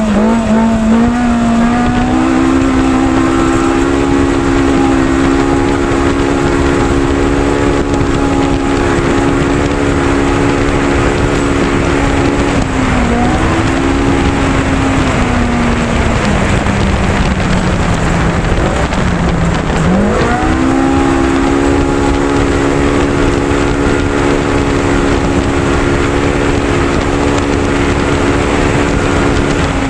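Race UTV engine held at high revs under load over a steady rush of noise. The revs climb hard at the start and hold, dip briefly about a third of the way in, sag slowly for several seconds as the throttle eases, then climb back up and hold steady to the end.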